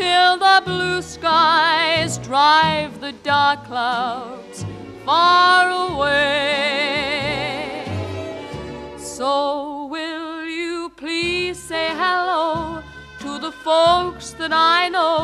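Music: a solo voice singing long, sustained notes with strong vibrato over an instrumental backing.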